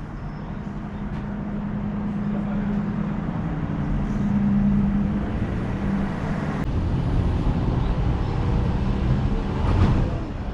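A car driving, its engine and road noise growing louder over the first few seconds as it picks up speed, with a brief louder swell near the end.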